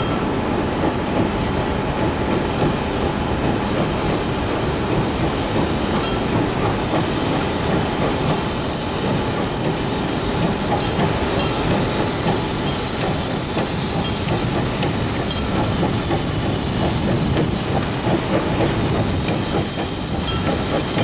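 Orenstein & Koppel fireless steam locomotive on 700 mm narrow-gauge track, hissing steam steadily over a low running rumble as it moves. The hiss grows louder about four seconds in.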